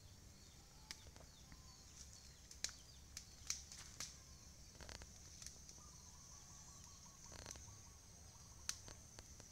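Near silence: faint outdoor ambience with a steady high-pitched hum and a few scattered sharp clicks.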